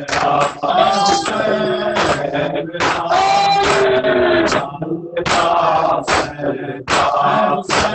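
A man chanting a noha, a Shia lament, into a microphone, with male voices of the congregation joining in. Sharp slaps of rhythmic chest-beating (matam) run under the chant.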